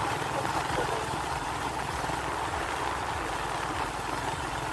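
Motorcycle engine running at a steady cruise while riding, with steady wind and road noise rushing past the microphone.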